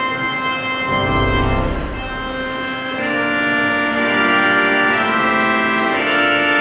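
Pipe organ playing held chords, with a deep pedal bass note coming in about a second in and the chords changing around two and three seconds in.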